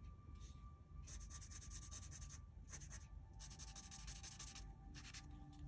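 Paper tortillon rubbing and smudging graphite across a small paper drawing tile: faint hissy strokes, several in a row, some about a second long.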